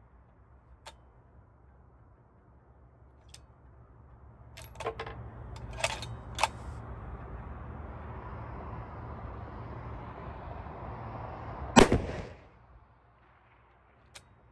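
A single shot from a 6 XC bolt-action precision rifle, sharp and loud, near the end. Before it come a few light clicks of the rifle being handled, and a steady rushing noise builds until the shot.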